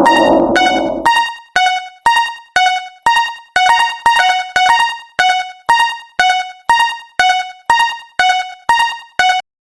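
Japanese railroad crossing alarm bell ringing in the steady kan-kan pattern, about two strikes a second, alternating between two pitches, each strike ringing out. It stops shortly before the end. A loud wash of sound fades out in the first second.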